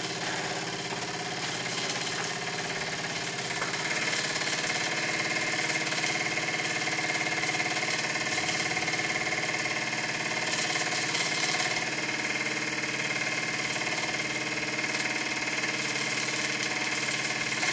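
Microcosm M1 model marine steam engine, a small double-acting twin-column engine, running steadily on steam from an electrically heated Jensen boiler. It gets a little louder about four seconds in. It makes more noise than normal because it is not fastened down.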